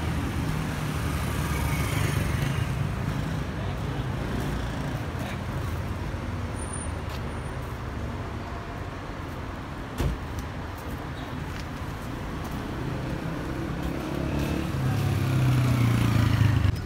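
Street traffic: vehicles driving past, with a steady low engine hum. One vehicle's engine grows louder near the end as it passes close, and there is a short knock about ten seconds in.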